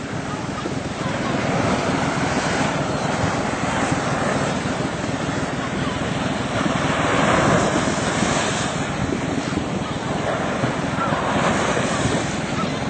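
Steady rush of wind buffeting the microphone and water washing past the hull of a moving inflatable boat.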